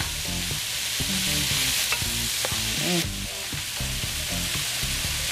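Chicken, onions and vegetables sizzling in a hot pan as they are stirred, with a utensil now and then clicking and scraping against the pan bottom to lift the charred bits.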